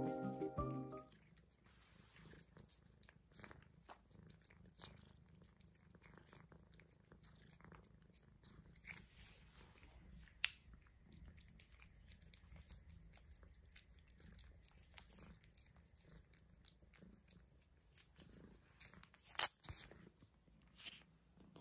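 Cats licking a squeeze-tube cat treat held in the hand: faint wet licking and smacking clicks, a little louder near the end. Music fades out in the first second.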